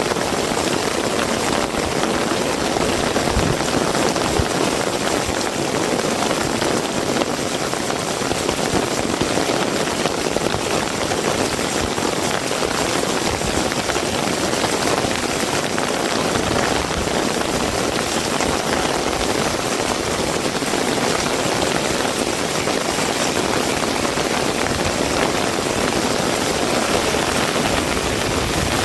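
Heavy rain falling steadily, an even rushing hiss that does not change.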